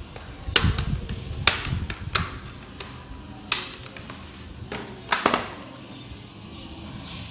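Plastic snap clips of a laptop screen bezel clicking loose as the bezel is pried off: a series of sharp, irregularly spaced clicks, two close together about five seconds in, with some handling rumble early on.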